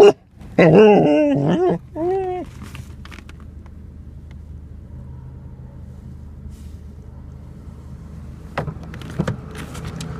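A dog making strange wavering vocal sounds: a loud, pitch-bending call of about a second near the start, then a shorter one, over a steady low hum. Two sharp clicks near the end.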